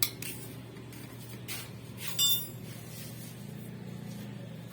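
A few light clicks and one ringing metallic clink about two seconds in, over a steady low hum.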